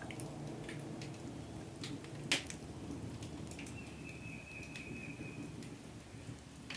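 Wood fire crackling in an open hearth, with scattered small pops and one sharper snap about two seconds in. A steady high tone sounds for about two seconds in the middle.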